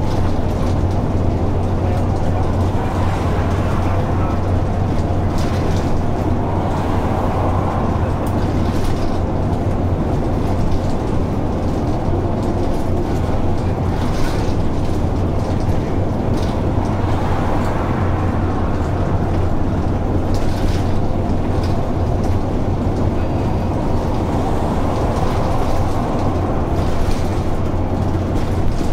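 Simulated Dennis Dart single-deck bus with Plaxton Pointer body, heard from inside while driving: a steady low engine drone over road noise, with occasional short clicks and rattles.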